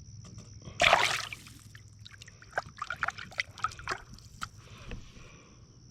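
River water splashing and trickling as a trout is held in the current and revived by hand: one louder splash about a second in, then a run of small splashes and drips.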